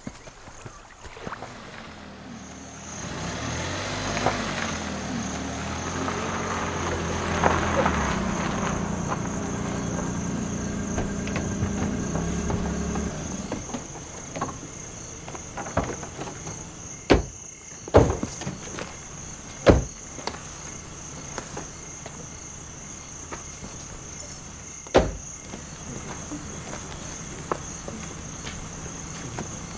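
Crickets chirring steadily at night. A car engine runs for about ten seconds and shuts off abruptly, followed by a few sharp knocks, typical of car doors being shut.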